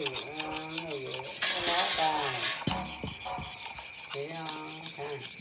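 Steel blade of a hand-forged Hmong knife being drawn back and forth across a wet whetstone, a repeated scraping of knife sharpening.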